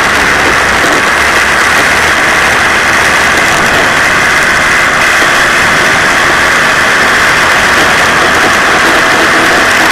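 Moped engine running steadily while riding, mixed with wind rushing over the microphone.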